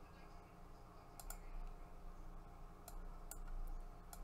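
A handful of faint computer mouse clicks, two in quick succession about a second in and the others spaced out after, over a faint steady low hum.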